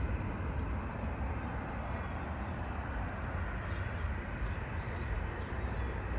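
Distant jet airliner on approach to land: a steady low rumble with no distinct events.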